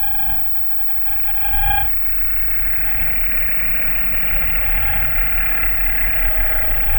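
Designed horror ambience: a steady deep rumble under held ringing tones for the first two seconds, giving way to a dense, hissing, rasping texture that slowly swells louder.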